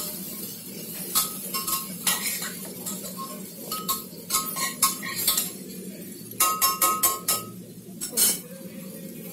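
Steel spatula stirring vegetables in a stainless-steel pressure cooker and a steel kadai. It scrapes and clinks against the pots, and each strike leaves a short metallic ring. A quick run of clinks comes about two-thirds of the way through.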